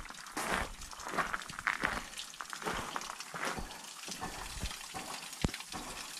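Water running from a bamboo spout into a stone hand-washing basin, spilling over its rim and splashing onto the stones below in a steady trickle, with a few footsteps on stone paving.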